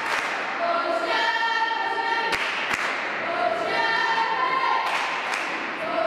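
Crowd of supporters chanting a sung phrase in unison, over and over. Two sharp thuds of a volleyball being struck come about two and a half seconds in.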